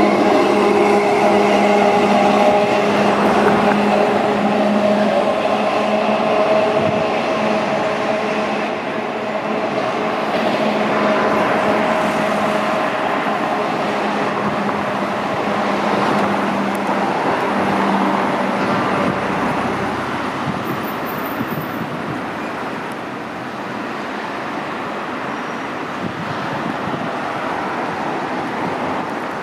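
Electric street trams running on city street track among road traffic. A steady hum with several tones fades out over the first eight seconds or so, leaving a general rumble of tram and traffic noise.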